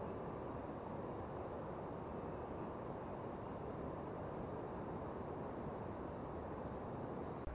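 Steady rushing of river water, an even noise with no rhythm.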